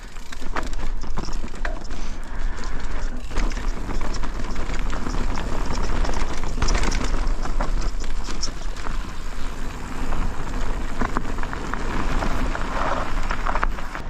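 A Specialized Kenevo e-mountain bike rolling fast down a dirt forest trail: knobby tyres crunching over dirt, stones and roots, with a constant clatter of knocks and rattles from the bike over bumps and a steady low wind rumble on the microphone.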